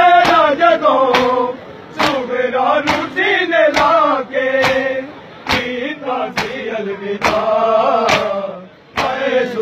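A crowd of bare-chested men beating their chests (matam) in an even rhythm, about two sharp slaps a second, while male voices chant a Punjabi noha (mourning lament) in phrases with short pauses.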